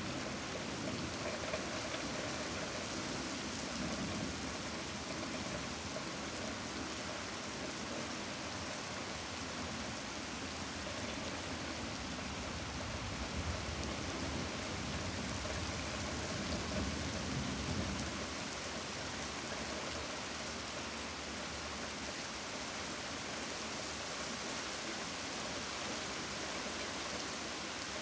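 Steady rain falling with an even hiss. A low rumble swells and fades near the start and again a little past the middle.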